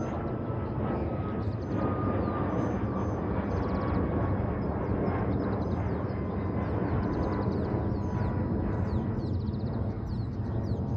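Boeing 737 MAX 8's CFM LEAP-1B turbofan engines at departure power: a steady jet roar with a thin fan tone falling slowly in pitch.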